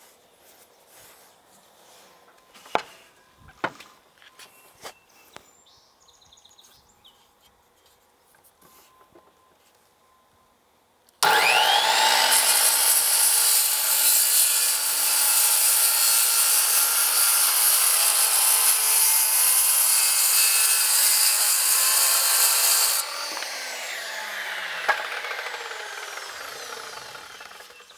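A few faint knocks, then a large circular saw starts suddenly about eleven seconds in, its motor whine rising, and crosscuts a rough ash slab for about twelve seconds. Near the end the saw is let off and its blade winds down.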